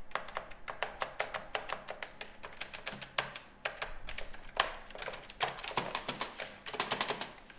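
Fast typing on an IBM 93Y1211 point-of-sale keyboard, whose keys push pins onto a resistive film pad rather than mechanical switches: a dense run of loud key clicks, many per second, with a few short pauses.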